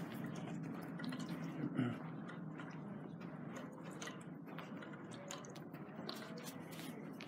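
Quiet indoor room tone: a low steady hum with faint scattered ticks and clicks, and one slightly louder knock about two seconds in.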